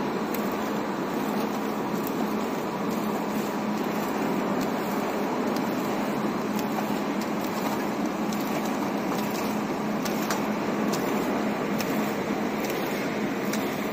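Automatic paging and labeling machine running: a steady mechanical hum from its conveyor and drives, with occasional light clicks scattered through.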